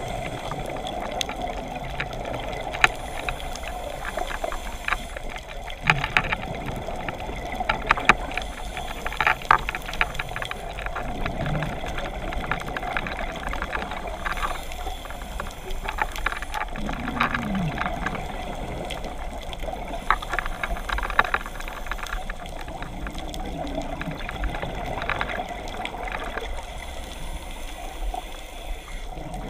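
Underwater sound of a scuba diver breathing through a regulator: a bubbly, burbling rush from the exhaust returns every few seconds with each breath, over a steady hiss and scattered clicks.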